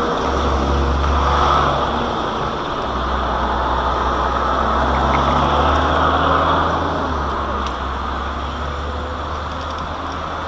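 Steady road traffic noise, with vehicle engines running at the junction, over a low rumble that comes and goes.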